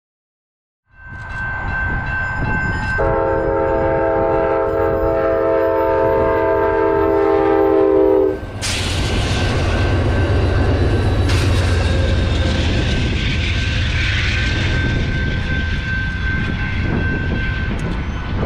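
Grade-crossing bell ringing steadily as an Amtrak train's GE P42DC diesel locomotive sounds one long horn blast of about five seconds, which cuts off abruptly. The train then passes, with loud engine rumble and wheel noise on the rails, the crossing bell still ringing until near the end.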